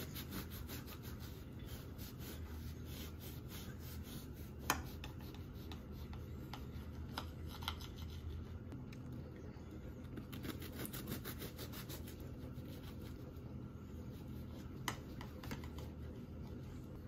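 Kitchen knife sawing back and forth through a crusty banana bread loaf topped with pecans, a scratchy rasp in runs of quick strokes. A few single sharp clicks are heard among them.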